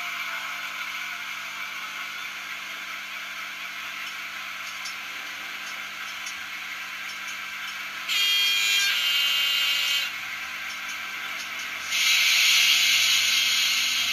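A model locomotive's digital sound decoder plays a Metropolitan-Vickers Class 28 diesel, with its Crossley two-stroke engine idling steadily, through the model's small speaker. About eight seconds in a louder tonal sound lasts about two seconds. From about twelve seconds a loud hiss starts.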